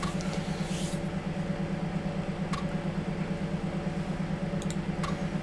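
A steady low hum with a fast, even pulsing, and a few faint clicks near the middle and near the end.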